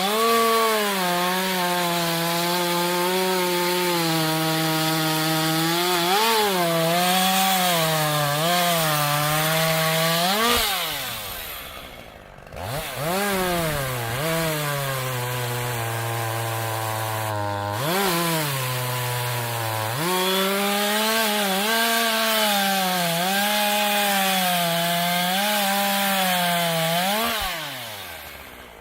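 STIHL MS 201 TC-M two-stroke top-handle chainsaw running at high revs and cutting wood, its engine pitch dipping and wavering under load. It falls back to a low idle about eleven seconds in and again near the end, with quick blips of throttle as it revs back up.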